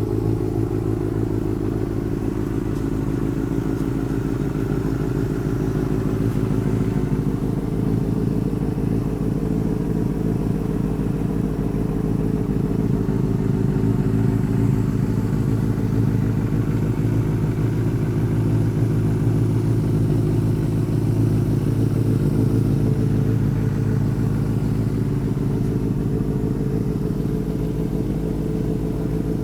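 Benelli TNT 600i inline-four engine idling steadily through an IXIL aftermarket exhaust, throttle untouched. It is a cold-start warm-up idle, with the engine still well below its 50-degree temperature and not yet to be revved.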